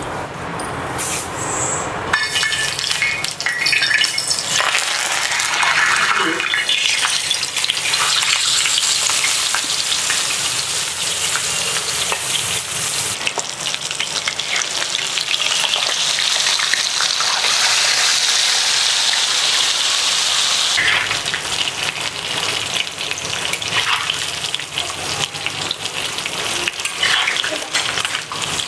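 Whole masala-coated sea bass shallow-frying in hot oil in a wide pan: a steady sizzle full of crackles, which gets louder about two seconds in. A metal spatula and fork now and then scrape the pan as the fish is turned.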